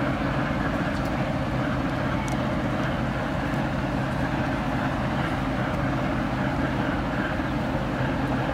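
TEM2 diesel shunting locomotive running steadily on the move: an even, continuous engine-and-running drone with a steady low hum.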